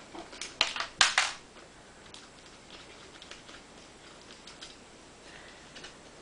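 Small parts of a two-speed RC car gearbox being handled: a quick run of sharp plastic-and-metal clicks and clacks about a second in, then a few faint scattered ticks.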